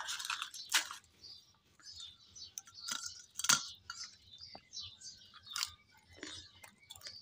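Someone eating a crisp fried puri with chole: soft crunching and crackling chews, with light clinks from a steel bowl.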